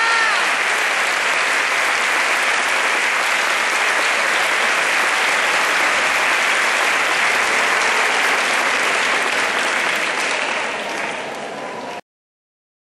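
Theatre audience applauding steadily and fading down about ten seconds in, then cut off abruptly near the end.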